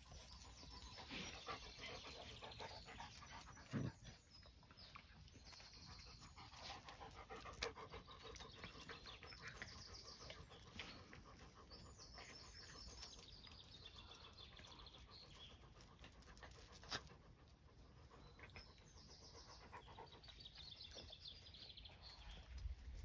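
Puppies panting faintly while play-wrestling, with a few soft knocks.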